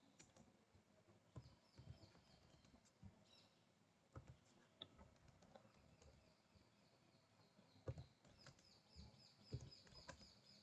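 Near silence: faint room tone with a few soft computer-mouse clicks and faint, quick high-pitched chirps in the background.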